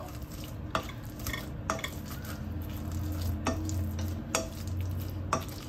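Soft, well-cooked boiled potatoes being mashed in a stainless steel saucepan with a red plastic grid potato masher: repeated pressing and squishing, with an irregular light knock of the masher against the pan every second or so. The potatoes give way with little effort because they are boiled very soft.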